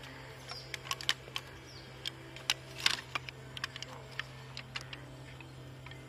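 Scattered light clicks and clinks of cutlery and dishes being handled at a breakfast table, irregular and short, over a steady low hum.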